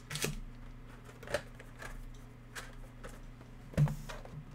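Trading-card packs and cards being handled: scattered light taps and rustles of foil wrappers and card stock about once a second, with a louder knock near the end, over a steady low electrical hum.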